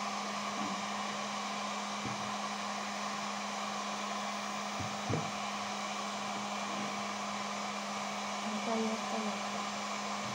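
Electric hot-air dryer (fen) running steadily with a constant hiss and low hum, blowing hot air to soften isolon foam sheet for shaping. A few faint taps from handling the foam and ball come about halfway through.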